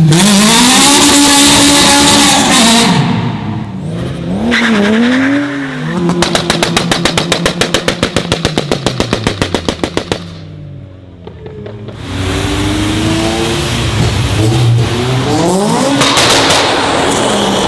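Modified car engines accelerating hard and revving, with quick up-and-down rev blips a few seconds in and a rapid stutter of about ten pulses a second for several seconds in the middle. After a brief lull, a sixth-generation Honda Civic hatchback accelerates away loudly.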